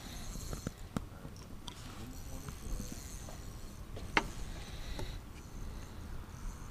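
A few sharp knocks and clicks on the wooden pier, the loudest about four seconds in, over a low wind rumble, with faint high chirping.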